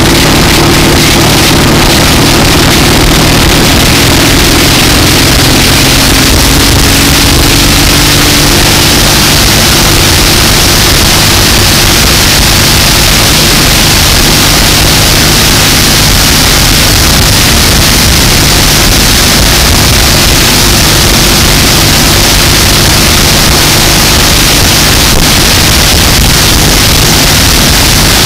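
1960 AJS 650 parallel-twin motorcycle engine running on the move, its note falling in pitch over the first few seconds. Heavy wind rush on the microphone largely covers the engine.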